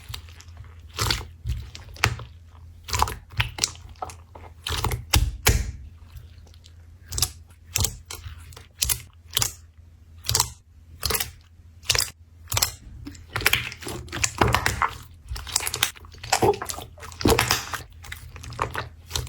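Slime being squeezed and pressed by hand, making sharp irregular clicks and crackling pops, several a second and thicker near the end, over a faint low hum.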